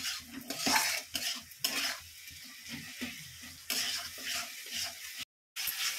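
Spatula stirring and scraping a tomato-and-spice masala in a kadai, with the paste sizzling as it fries on high heat. This is the bhuno stage, cooking until the masala is done and the tomatoes break down. The sound drops out for a moment near the end.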